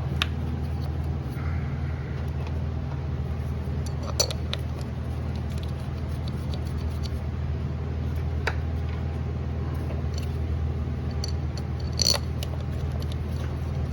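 Steady low hum of the shop in the background, with a few short metallic clicks and taps, about 4, 8.5 and 12 seconds in, as ignition coils and tools are handled during the coil install.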